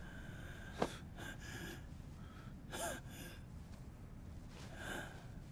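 A person gasping for breath, two short pitched gasps a couple of seconds apart, over a low steady background, with a sharp click about a second in.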